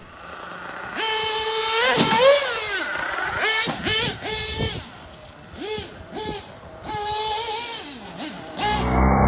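Nitro RC truggy engine running at high revs, its pitch dipping and climbing back several times as the throttle is let off and reapplied. It starts about a second in and stops shortly before the end.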